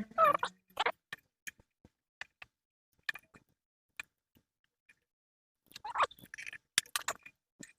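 Scattered light clicks and taps of small parts and tools being handled, with a denser run of clicks and short scrapes about six to seven seconds in.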